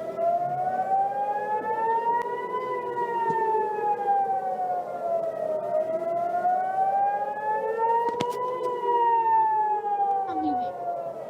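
Warning siren wailing, its pitch sweeping slowly up for about three seconds and back down for about three seconds, over and over.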